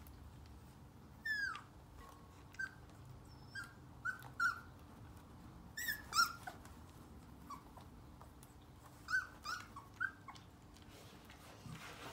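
Four-week-old sheepadoodle puppies giving about a dozen short, high-pitched yips and squeaks, scattered and some in quick pairs.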